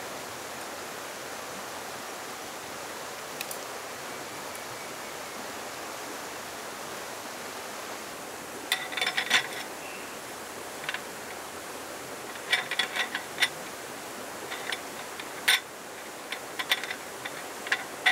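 Steady rushing of flowing water, then from about nine seconds in a run of sharp metallic clicks and rattles as a roll-up aluminium slatted tabletop is laid and pressed onto its folding aluminium frame.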